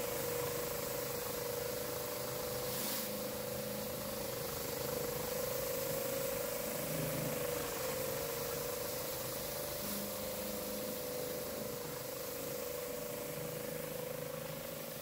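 Pressure washer rotary surface cleaner running over wet paving slabs: a steady drone with a slight waver, over the hiss of the water spray, easing off near the end.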